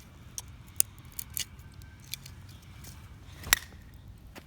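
Scattered light clicks and taps of hard objects, with one sharp knock about three and a half seconds in.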